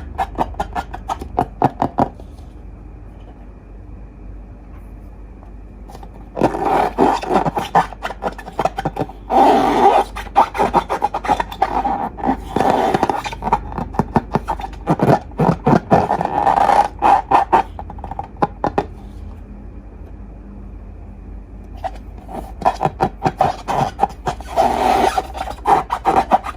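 Slime being squeezed and kneaded by hand, crackling and clicking in three bouts separated by short pauses.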